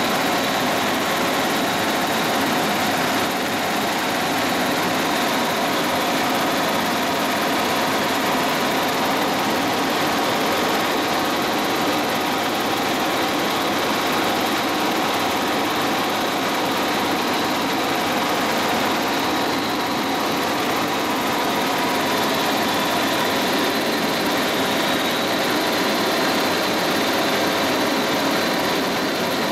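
Helicopter cabin noise in flight: the steady drone of engine and rotor, with a steady high whine over it.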